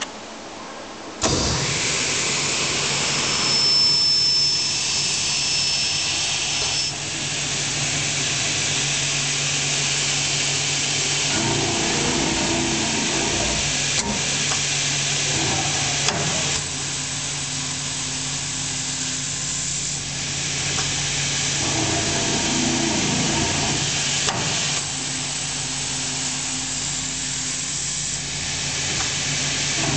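MG GAA-350-90 TR12 CNC automatic cut-off machine for aluminium starting about a second in and running its automatic cut, drill and tap cycle: a steady motor hum under a loud hiss, with the pitch rising and falling twice and a few sharp clicks.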